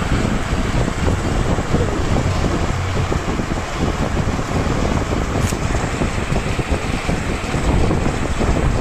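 Steady loud rushing noise with a deep rumble, air buffeting the microphone, with a single sharp click about five and a half seconds in.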